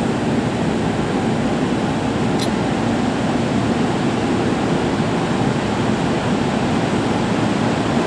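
Steady rushing hum of a Seibu 40000 series electric train standing at the platform, its air conditioning and onboard equipment running. A brief faint high chirp sounds about two and a half seconds in.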